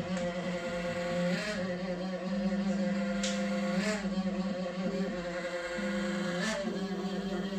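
Creality K1 3D printer's mainboard fan making a loud, strange humming drone of several steady tones that step in pitch a few times, with short rasping noises between. This noise occurs only while the printer is starting up and disappears once it begins printing.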